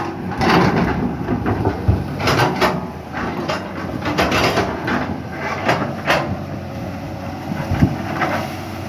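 Caterpillar 320C hydraulic excavator working under load, its swapped-in Mercedes 366 six-cylinder diesel running steadily while the bucket digs and scrapes through earth and stones. Irregular knocks and scrapes come through on top of the engine hum.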